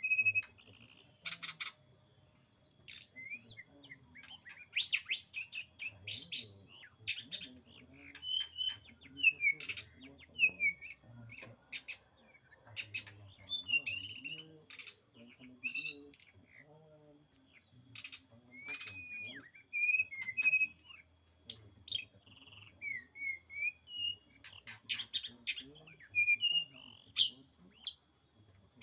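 Brown-chested jungle flycatcher (sikatan rimba dada coklat) song: a fast, varied run of high chirps, trills and short whistled notes, with a brief pause about two seconds in.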